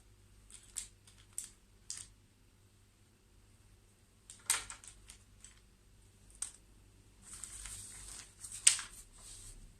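Pencil scratching on paper in short strokes, with a longer run of drawing strokes in the last couple of seconds.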